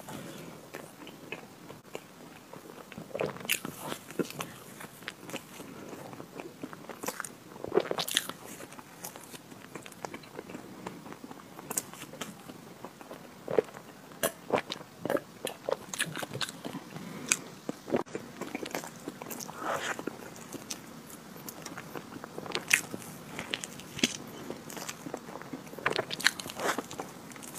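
Close-miked eating of a chocolate ice cream cake: biting and chewing with many irregular, sharp mouth clicks and crunches.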